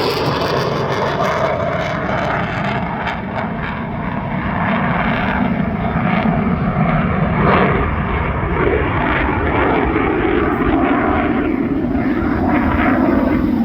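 Jet noise from a US Navy F-35C's single Pratt & Whitney F135 engine, a loud steady rumble and rush with some slow swells in pitch as the jet flies its demo.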